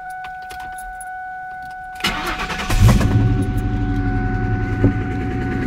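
A 2000 Ford Mustang GT's 4.6-litre V8 is cranked by the starter about two seconds in and catches within a second. It settles into an idle with a loud knocking inside the engine, which the owner likens to "a small war" and which came on suddenly with no warning. A steady high tone sounds throughout.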